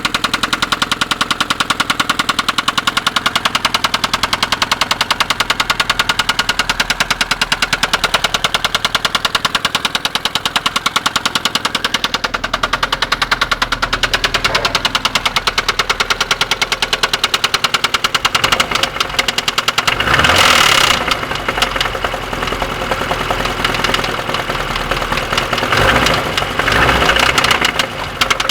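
Vehicle engine running with a fast, regular knock ticking in time with it. The sound swells twice: about twenty seconds in and again some five seconds later.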